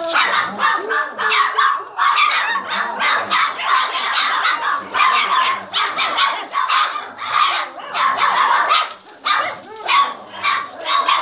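A litter of 27-day-old boxer puppies barking, a rapid string of short, high-pitched yapping barks with several puppies overlapping.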